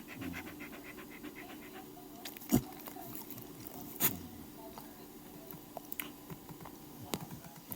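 A sleeping dog snoring, with a fluttering rattle in the first second. Two sharp knocks about two and a half and four seconds in, and lighter clicks later.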